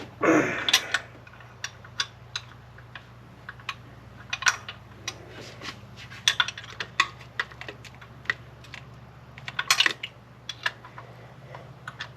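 Metal hand tools clinking and clicking against engine hardware in irregular taps, with a short scrape near the start, as a wrench or socket is worked onto a tight thermostat-housing bolt.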